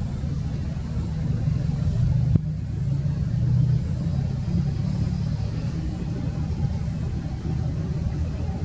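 Steady low drone of a fast passenger ferry's engines as it runs in at speed, with a single sharp click a little over two seconds in.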